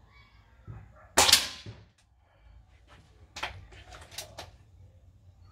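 A 6.35 mm Black Knight air rifle fires a shot: one loud, sharp report a little over a second in, with a short tail. A few fainter sharp clicks and knocks follow two to three seconds later.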